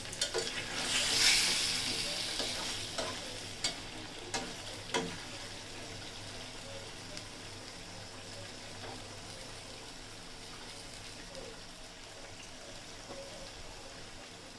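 Chicken curry masala frying in oil in a pan, the steady sizzle of a bhuna being cooked down, with a spoon clicking against the pan several times in the first five seconds as it is stirred. The sizzle swells briefly about a second in, then settles to a steady, fainter hiss.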